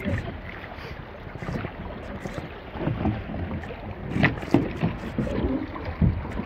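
Wind rumbling on the microphone over small waves lapping on a pebble shore, with a few short knocks and crunches, the loudest about four seconds in and again near the end.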